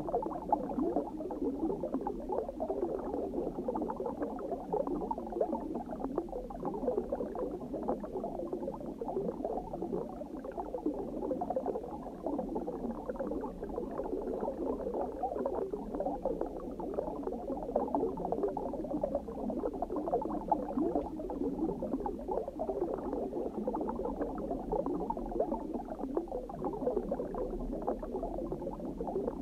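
Steady underwater bubbling and gurgling: a dense, muffled stream of small bubble pops with no high sound in it.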